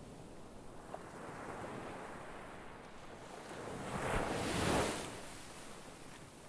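Ocean waves washing, with one wave swelling and breaking about four seconds in, then ebbing away.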